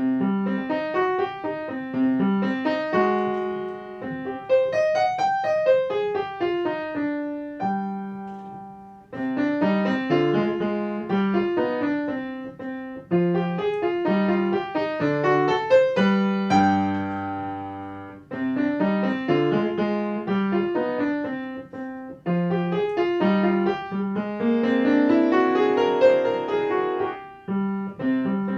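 Solo piano playing a short piece, with runs of notes that climb and fall and a deep low note held for a moment about sixteen seconds in.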